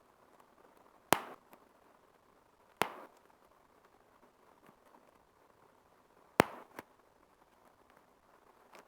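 Bubble wrap bubbles popping one at a time: three sharp, separate pops several seconds apart, the third the loudest and followed closely by a smaller pop, then a faint pop near the end.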